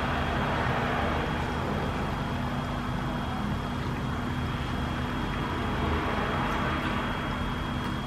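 Steady background hum and hiss with no distinct events: room tone.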